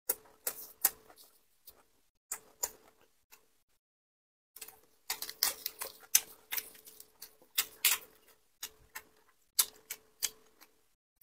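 Close-miked eating sounds: wet chewing clicks and crisp crackling of fresh lettuce leaves being torn and folded with plastic-gloved hands. The sounds come in short bursts of sharp clicks with brief silent gaps, and are densest around the middle.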